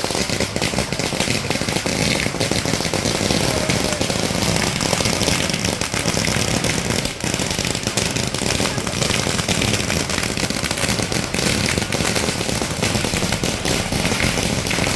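Firecrackers going off in a dense, continuous run of rapid cracks and pops, with a crowd talking underneath.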